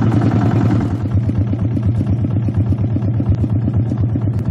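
Small vehicle engine running steadily with a fast, even putter and a low hum.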